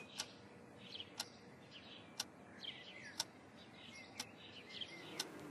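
A clock ticking faintly and evenly, once a second, with faint bird chirps between the ticks.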